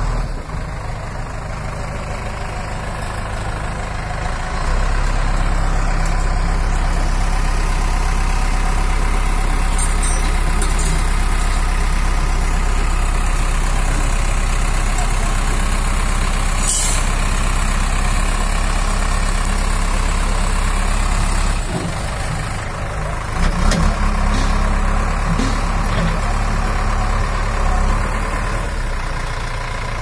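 JCB 3DX backhoe loader's diesel engine running close by. It picks up to a higher, steady speed about five seconds in, drops back toward idle about two-thirds of the way through, and swells briefly twice after that.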